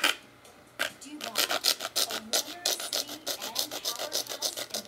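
Serrated Forever Sharp steak knife sawing back and forth through rigid white plastic, a quick run of rasping strokes, several a second, starting about a second in.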